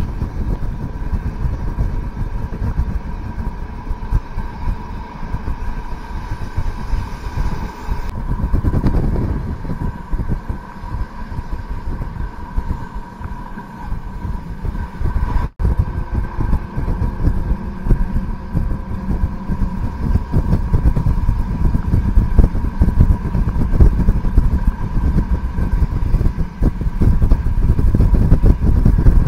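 ALn 668 diesel railcar under way, heard from on board: the engine runs with a steady whine over a continuous rumble of wheels on track, growing louder toward the end, with a momentary dropout just past halfway.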